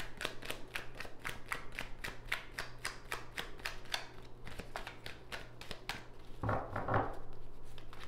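A deck of tarot cards being shuffled by hand: quick papery snaps and clicks of cards slipping off the deck, about five or six a second at first, then slower and more spaced. A brief murmur of a voice comes about two-thirds of the way through.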